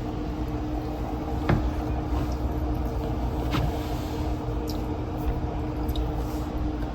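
Steady mechanical hum with a low rumble, broken by a couple of faint clicks.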